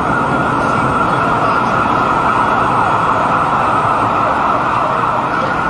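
Loud, steady rushing din with emergency sirens wailing faintly through it.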